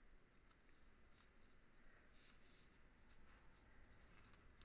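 Near silence, with faint soft rustling as thick yarn is drawn over and through with a wooden crochet hook, the clearest rustle about two seconds in.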